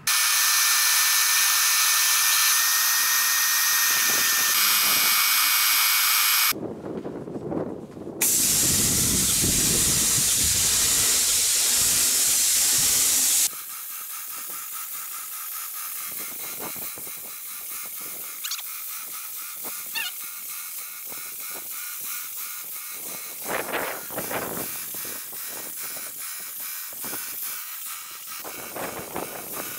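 Wagner Control Pro 250M airless paint sprayer spraying paint through the gun's nozzle: a loud steady hiss that stops for under two seconds about six and a half seconds in and then resumes. From about halfway the hiss carries on much quieter and more uneven.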